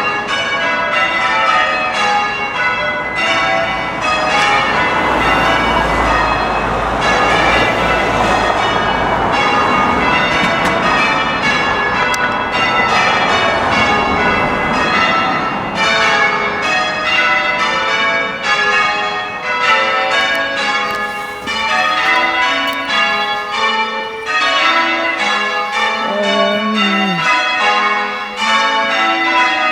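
The front six bells of an eight-bell church ring, change ringing at practice, heard from outside the tower: a continuous, rapid succession of bell strokes following one another in rounds and changes.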